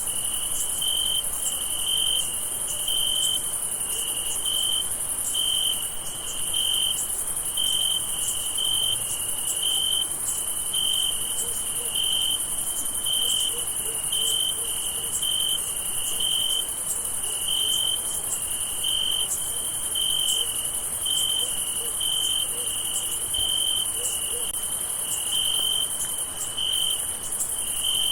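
Crickets at night: one cricket chirping in a regular rhythm, a little more than once a second, over a steady, very high-pitched insect trill.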